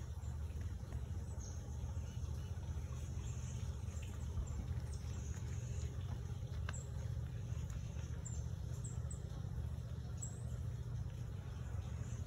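Outdoor woodland ambience: a steady low rumble, with faint, short high chirps of small birds scattered through it.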